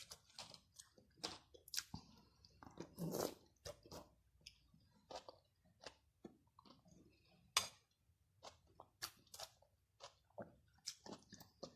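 A person chewing and biting food close to the microphone: irregular mouth clicks and smacks, with a sharp crunch about seven and a half seconds in.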